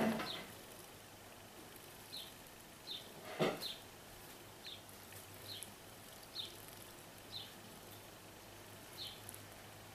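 House sparrows chirping: single short, high chirps about once a second, faint, with one brief louder noise about three and a half seconds in.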